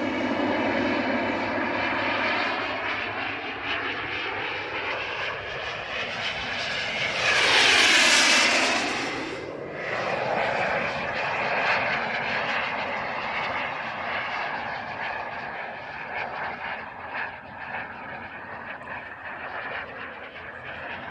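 Model jet turbine (KingTech) of an RC Rafale jet in flight: its whine and rush sweep past in one loud close pass about eight seconds in, with the pitch dropping as it goes by, then fade somewhat as the jet moves off.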